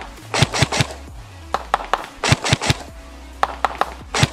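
Tokyo Marui P90+ airsoft electric gun firing quick single shots: sharp cracks in clusters of two to four, several a second, over background music.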